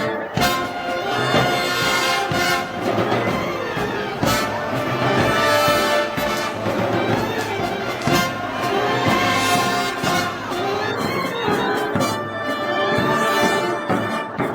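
Festival brass band playing slow processional music, with trumpets and trombones sustaining chords over a heavy percussion stroke about every two seconds.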